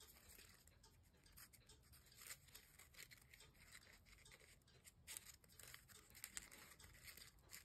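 Faint, scattered rustles and small ticks of folded paper origami units being handled and slotted together.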